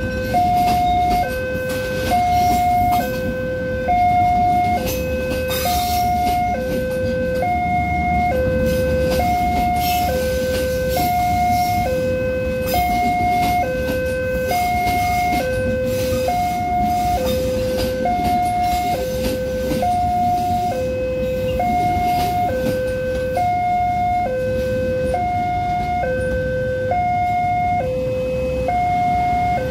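Railroad level-crossing warning alarm sounding a two-note hi-lo tone, switching pitch about every half second, over the rumble and clatter of a passenger train passing over the crossing.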